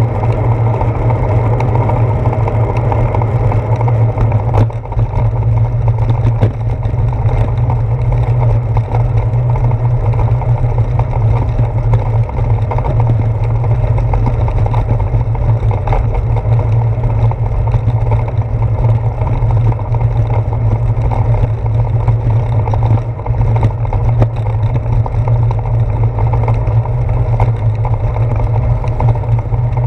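Steady low rumble of wind and road noise picked up by a handlebar-mounted GoPro Hero 4 on a bicycle riding over wet pavement, with small knocks from bumps in the road.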